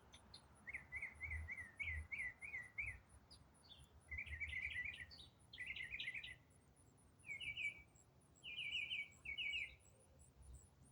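A songbird singing a long, varied song: a string of short phrases, each a quick run of one repeated note figure, changing from phrase to phrase with brief pauses between.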